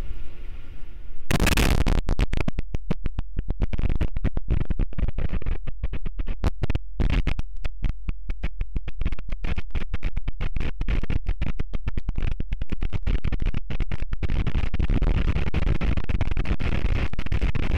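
Mount Stromboli's eruption heard through a live webcam's microphone: a loud, rough noise that starts suddenly about a second in. The audio is choppy, broken by many brief dropouts, and runs more evenly near the end as the ash cloud engulfs the camera.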